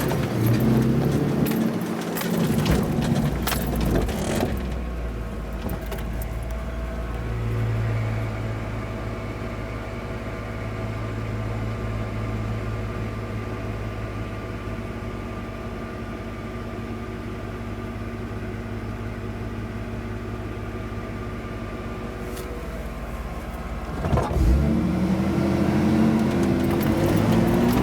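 1988 Toyota 4x4's engine running as it drives a rough dirt trail. The first few seconds have rattles and knocks, then the engine runs steadily for a long stretch. Near the end a sharp knock comes and the engine grows louder and uneven in pitch, with more rattling.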